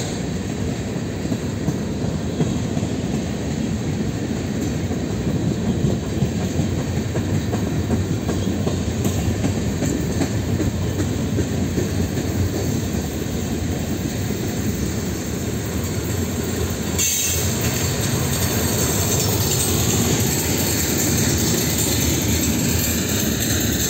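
Freight cars of a mixed freight train rolling past: a steady rumble of steel wheels on the rails. About two-thirds of the way through, a higher hiss joins in as the last cars go by.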